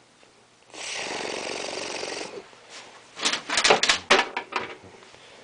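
A child making helicopter noises with his mouth: a steady, rapidly rattling breathy sound for about a second and a half, then a string of short, rough, louder bursts.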